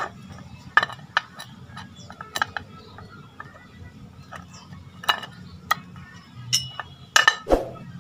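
Irregular metal clicks and clunks as a Yamaha Sniper 150 clutch housing and its driven gear, with the damper rubbers removed, are handled and knocked against each other. The strongest knocks come near the end.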